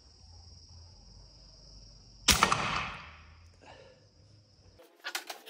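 A PCP air rifle shooting an arrow: one sharp shot a little over two seconds in, then a short fading tail.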